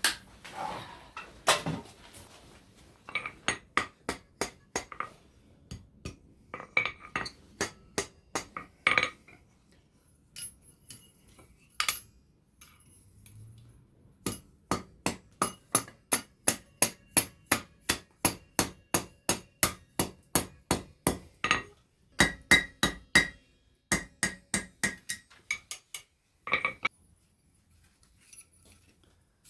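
Blacksmith's hammer striking steel on an anvil in runs of steady, ringing blows about three a second, broken by short pauses.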